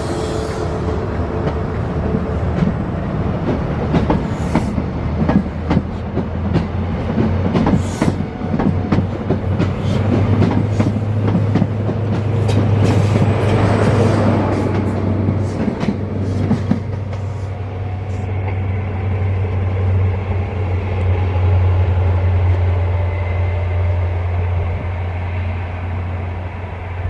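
GWR 'Castle' HST (InterCity 125) pulling out of a station: the coaches rumble past with the wheels clicking over rail joints, then the rear Class 43 power car's MTU diesel engine goes by with a steady low drone. The drone is loudest about ten to fourteen seconds in and keeps going as the train accelerates away.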